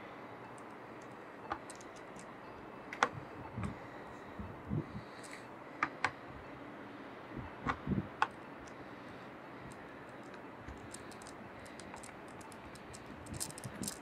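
Wooden-wick candle crackling: irregular sharp ticks and pops, sparse at first and coming thick and fast near the end, with a few soft low thumps among them over a steady faint hiss.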